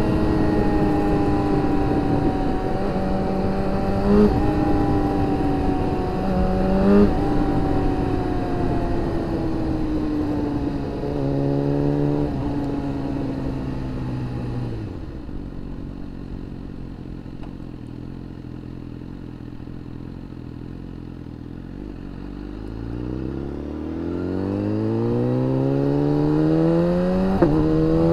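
Inline-four superbike engine under way: it runs at steady revs with a couple of quick gear changes, then the revs drop and it runs quietly at low revs for several seconds. About two-thirds of the way through, the revs climb steadily as the bike accelerates hard, with a shift near the end.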